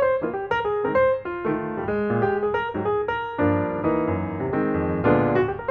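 Background piano music, a quick succession of notes and chords.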